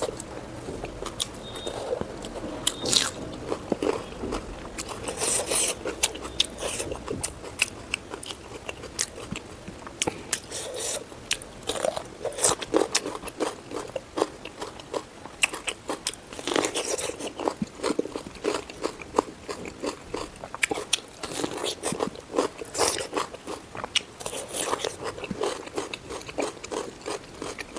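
A person biting and chewing food close to the microphone: frequent crunches and wet mouth clicks, several a second, in an irregular rhythm.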